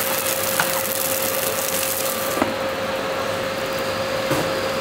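Automatic fried-rice cooking machine running with a steady hum while egg fried rice sizzles in its pan. About halfway through, a click sounds as the lid closes over the pan, and the high sizzling hiss drops.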